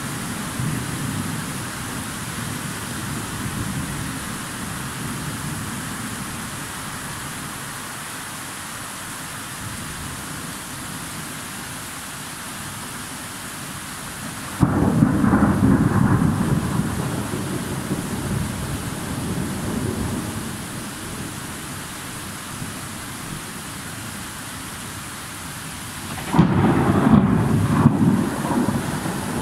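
Thunderstorm: steady rain with rolling thunder. A low rumble fades over the first few seconds. A sudden loud thunderclap comes about halfway through and rumbles on for several seconds, and another breaks near the end.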